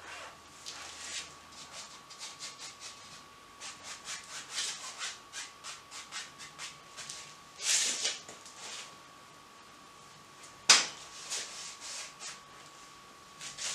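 A 1-inch brush scrubbing oil paint onto a canvas wet with liquid white, in short crisscross strokes a few times a second. A sharp knock comes about ten and a half seconds in.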